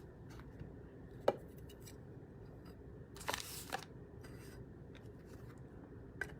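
Faint handling of trading cards and their packaging: a sharp click a little over a second in, a brief rustling scrape around three seconds in, and another small click near the end.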